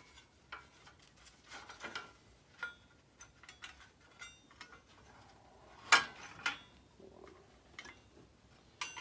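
Metal tools and steel parts being handled: scattered light clinks and short scraping strokes, with one sharp metallic clack about six seconds in.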